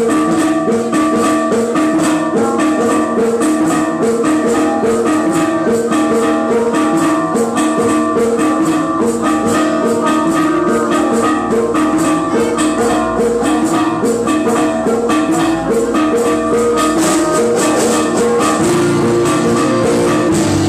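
A live band playing an instrumental passage: a quick, repeating, bell-like melody on tuned metal percussion over drum kit, electric guitars and keyboard, with the bass filling out near the end.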